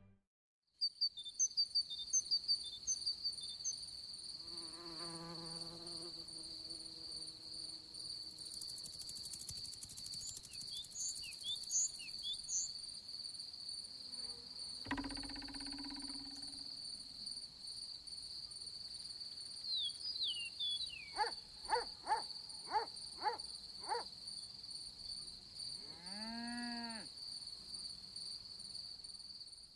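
Meadow insect ambience: a cricket trilling steadily on one high tone, starting about a second in. Scattered short chirps, a wavering buzz, a dull thud and a quick run of about five clicks come through over it.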